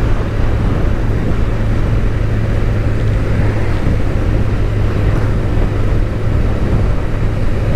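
Suzuki motorcycle running steadily under way, a constant low engine drone under an even rush of wind and road noise.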